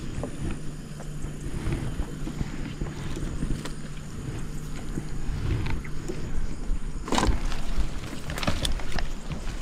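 An engine running steadily with a low hum and rumbling noise; the hum fades out about six seconds in. A few sharp knocks follow near the end.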